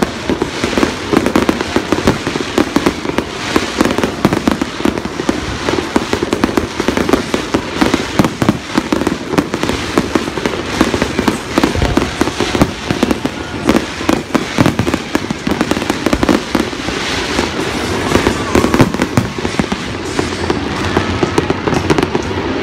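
Aerial fireworks display: a dense, continuous barrage of sharp bangs from shells bursting overhead.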